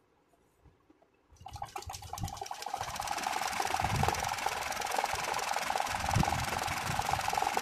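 Janome Secio 8200 embroidery sewing machine starting to stitch about a second and a half in, picking up speed and then running steadily at a fast stitching rate while hooped fabric is guided by hand for free-hand embroidery.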